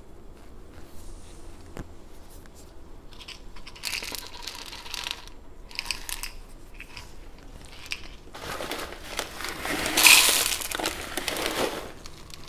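Small crushed-stone gravel rattling in a plastic scoop and trickling into a planter: a few short spills, then a longer, louder rattle from about eight seconds in as the scoop is filled with stones.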